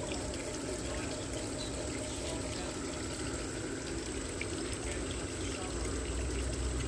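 Large-scale garden railway train running on outdoor track: a steady rolling rush of wheels on rail, with a low rumble growing near the end.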